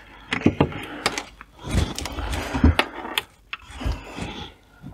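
Hands handling small satellite speakers and their cables: scattered clicks and knocks with rustling, and two dull thumps between two and three seconds in.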